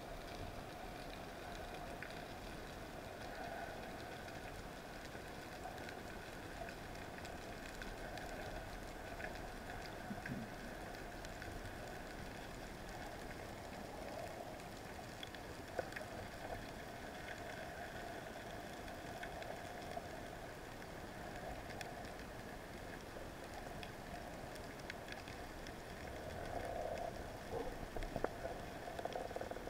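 Underwater ambience picked up by a camera in its housing during a freedive: a steady hiss with scattered crackles and clicks, growing busier and a little louder near the end.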